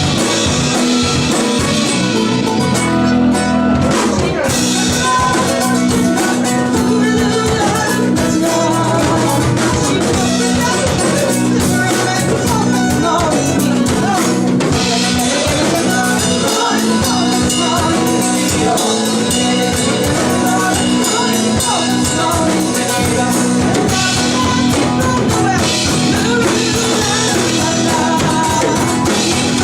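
Live band playing a lively Irish folk song, with guitar and drums and a held low note running underneath.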